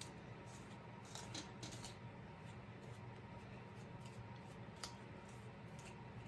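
Faint handling sounds: a few short rustles and clicks about a second in and a single sharp click near the five-second mark, over a steady low hum.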